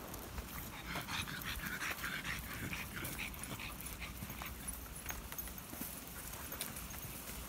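A pack of dogs on leads panting as they walk, with scattered footsteps and small clicks on a dirt path. The breathing is strongest between about one and three seconds in.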